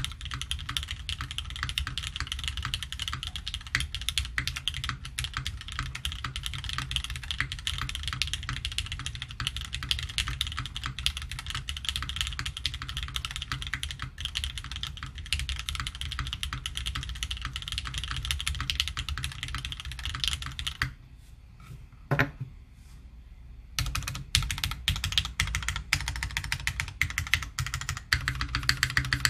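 Typing on a Maker Velvet top-mount custom mechanical keyboard with lubed Gateron X switches on an aluminium plate and GMK keycaps: a steady stream of soft-sounding keystrokes. About two-thirds of the way in the typing stops for roughly three seconds, broken by one lone keystroke, then resumes.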